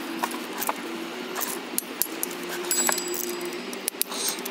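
Ratchet torque wrench and socket tightening water pump bolts: scattered sharp metallic clicks and clinks of the ratchet and socket on the bolts, over a low steady hum.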